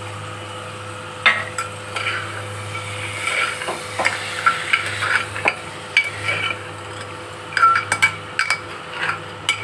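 Steel ladle stirring black chickpeas and masala frying in a pressure cooker: repeated scrapes and clinks of metal on the pot's sides over a low sizzle, starting about a second in. This is the frying (bhuna) stage before water is added.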